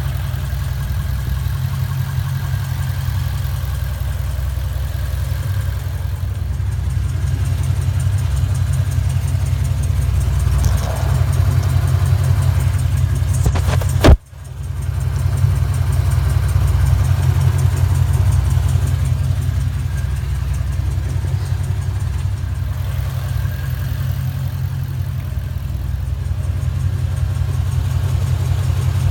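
2014 Ford Mustang GT California Special's 5.0 Coyote V8 idling steadily with no catalytic converters, with a tick that comes and goes, which the owner suspects comes from the cam phasers or lifters. One sharp, loud knock about halfway through.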